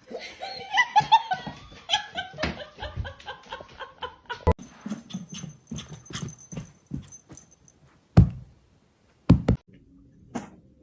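A dog whining in short cries that bend up and down for about the first four seconds, followed by scattered clicks and knocks, the loudest two coming near the end.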